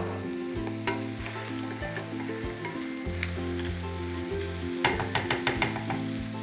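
Cubed lamb and chopped onion sizzling in hot olive oil in a frying pan. About five seconds in, a wooden spoon stirs and scrapes against the pan in a quick run of clicks.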